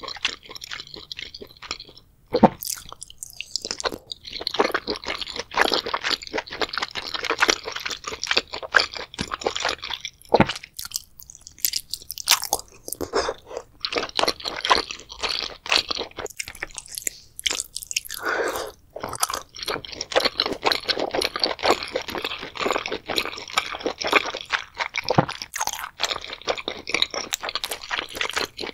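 Close-miked chewing and biting of spicy boiled seafood: scallops, octopus and enoki mushrooms. It makes a fast, dense run of small wet clicks and crackles, with brief pauses and a few sharper clicks.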